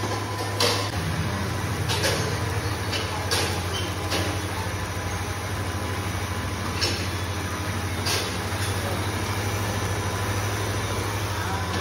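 Steady electric motor hum of a footwear-making machine, with a few sharp clicks scattered through it.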